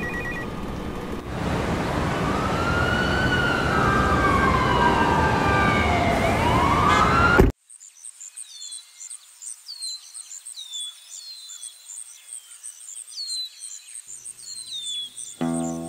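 Siren wailing slowly up and down over steady traffic noise, cut off abruptly about halfway through. Then a quiet outdoor stretch with a bird repeating short falling chirps over faint rapid high ticking, and guitar music comes in near the end.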